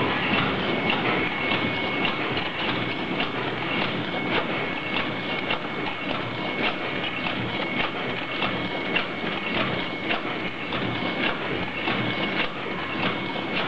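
Automatic soft-tube filling and sealing machine running: a steady mechanical clatter with regular clicks about two to three times a second over a constant high-pitched tone.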